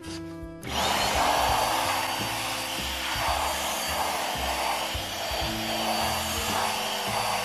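Handheld electric air blower switched on about a second in, then running steadily with a strong rush of air as it blows dust off a laptop's aluminium bottom panel.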